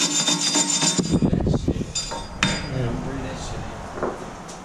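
A flat metal hand tool scraping across the face of a front wheel hub, cleaning it off before a new brake rotor goes on. It is followed by metallic clinks and knocks, with one sharp click about two and a half seconds in.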